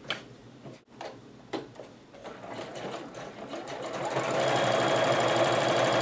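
A few sharp clicks, then a sewing machine stitching with a twin needle: it starts slowly about two seconds in, speeds up, and runs steadily at full speed from about four seconds in.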